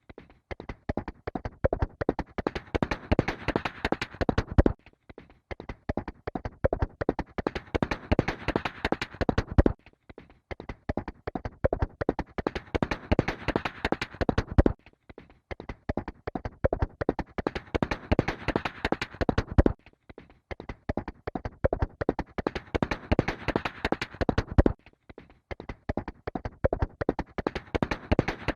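Horse galloping: a dense run of rapid hoofbeats that repeats as a loop about every five seconds, with a brief break at each repeat.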